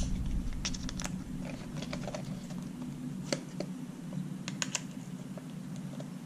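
Small, irregular metallic clicks and ticks of a hex key seating in and turning the cleat bolts on a Specialized Audax road shoe, loosening them to take off the cleat. The bolts were greased before and come loose easily. A steady low hum runs underneath.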